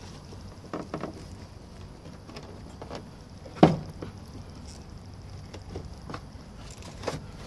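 Scattered clicks and taps of a trim tool and plastic door trim being worked on a truck's inner door panel, with one sharp knock about three and a half seconds in.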